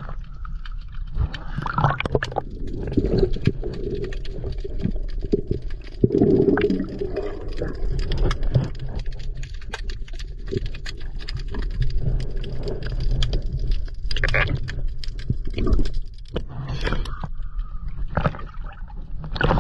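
Underwater sound from a diver: gurgling bubbles from the diver's breathing a few times, over a steady low rumble and many scattered sharp clicks.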